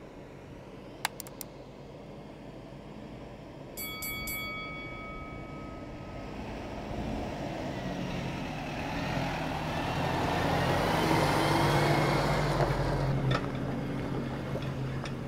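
Isuzu NPS 75/155 4x4 truck's diesel engine and tyres approaching slowly on a dirt track, growing louder to a peak as it passes close by about eleven seconds in, then moving away. About a second in there are a few sharp clicks, and about four seconds in a bell-like chime rings for two seconds, from an on-screen subscribe graphic.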